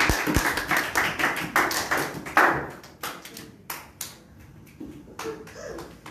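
A few people clapping in quick, uneven claps, dense for the first two and a half seconds and then thinning out to scattered claps.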